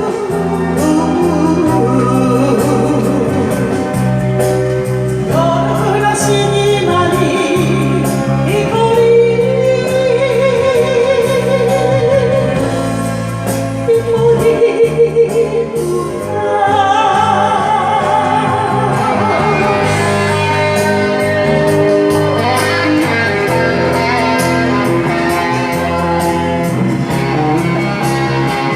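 Enka karaoke backing track playing an instrumental interlude: a lead melody with vibrato over a steady bass line and light percussion.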